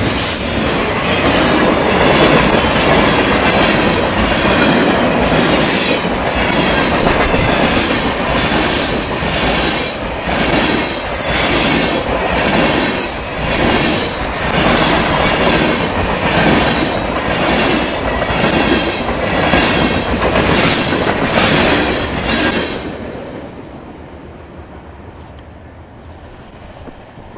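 CSX freight train of tank cars and boxcars rolling past, wheels clacking over the rail joints with repeated spells of high wheel squeal. About 23 seconds in it cuts off abruptly to a faint, steady outdoor background.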